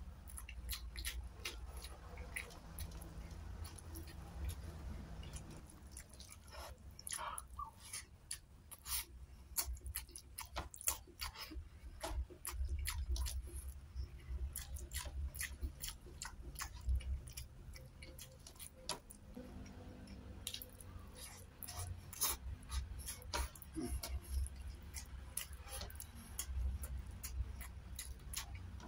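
Close-miked chewing and lip-smacking of a mouthful of rice and canned sardine, with many short wet mouth clicks at an uneven pace over a low rumble.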